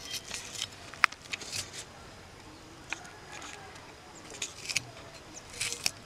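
Small red onions being peeled and trimmed against a hand-held cleaver: scattered crisp clicks and crackles of papery onion skin and blade, irregular rather than rhythmic. The sharpest click comes about a second in.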